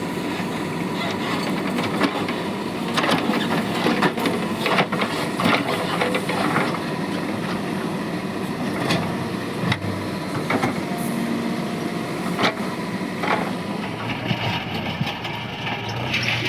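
Backhoe loader's diesel engine running steadily, with repeated sharp knocks and clanks, most of them between about 2 and 13 seconds in.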